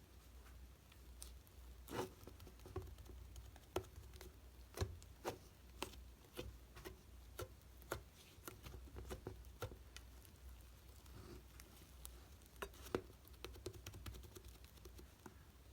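Faint, irregular taps and clicks of small objects being handled, a dozen or more spread unevenly, over a low steady hum.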